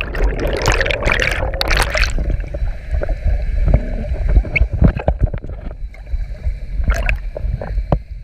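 Water turbulence and air bubbles heard through a submerged action camera: a dense rush of bubbles for about the first two seconds, then a low underwater rumble and gurgling with scattered knocks.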